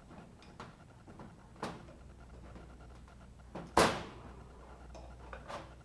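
Pliers cutting through the red wires on a gas water heater control valve: one sharp snap a little under four seconds in, with a few lighter clicks of the tool and parts being handled around it.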